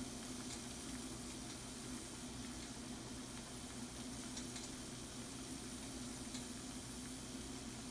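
Shrimp and mushrooms sizzling and simmering in their juices in a frying pan: a steady faint hiss with scattered small pops, over a steady low hum.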